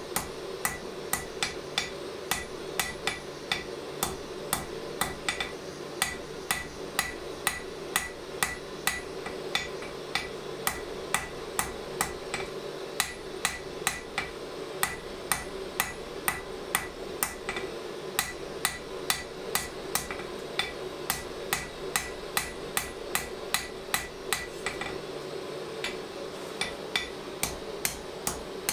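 Blacksmith's hammer striking a red-hot steel drawknife blade on an anvil, a steady rhythm of about two blows a second, each with a short metallic ring, over a steady low hum.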